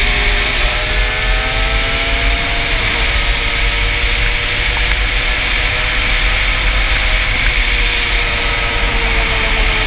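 Yamaha Banshee ATV's two-stroke twin engine running under throttle at road speed, its note climbing, dropping about three seconds in, then holding steady and easing down near the end. Heavy wind buffeting on the helmet-mounted microphone.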